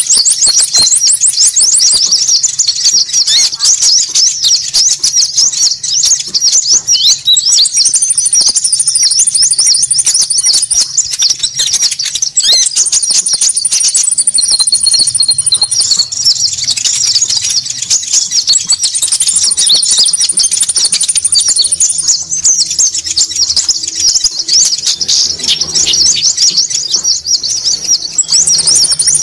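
Bird-lure recording of small songbirds (konin) calling in a noisy chorus: dense, rapid, high chattering without pause. A steady higher trill of about two seconds comes in several times.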